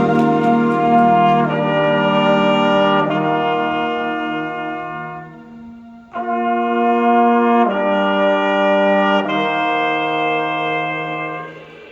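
Marching band brass playing slow, sustained chords that change every second or two. The first phrase fades away; a new one enters about six seconds in and fades again near the end.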